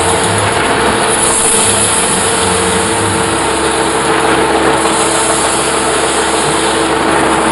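Large metal-spinning lathe running while a long hand-held spinning bar is levered against the turning sheet-metal dish: steady, loud machine noise with a constant hum.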